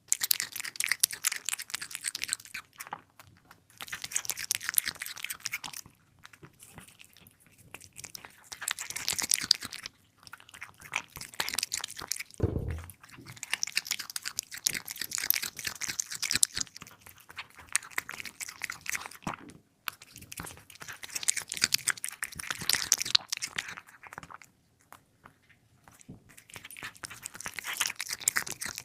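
A cat chewing its food in runs of dense little clicks a few seconds long, with short pauses between them. There is one brief low bump near the middle.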